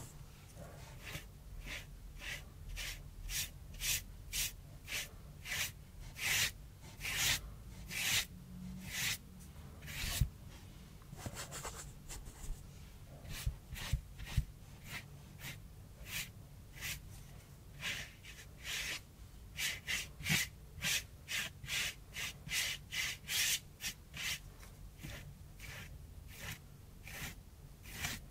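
Flat bristle brush loaded with gouache stroking across gouache cardboard: a steady run of short rubbing swishes, about one or two a second, some in quicker clusters.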